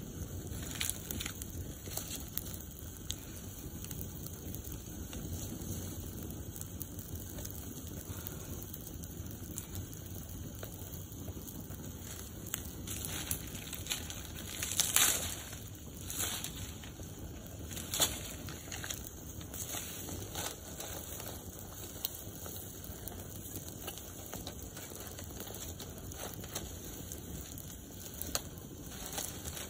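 Open wood fire crackling, with small pops scattered over a steady low rush of flame. A couple of louder snaps come about halfway through as dry stalks are broken and handled for the fire.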